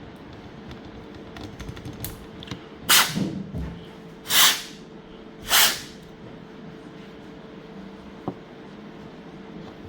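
Three short hissing puffs of air from a hand air blower, each about half a second long, blowing dust out of a drifting PS5 DualSense controller, with a few small clicks of handling.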